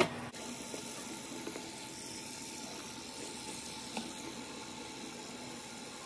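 Water from a sink faucet running steadily and splashing over a hand, an even hiss. It opens with a brief loud knock.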